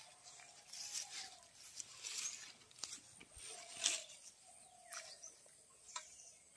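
Footsteps swishing through grass and dry straw, a brushing swish about every second, the loudest about four seconds in, with a few sharp clicks near the end.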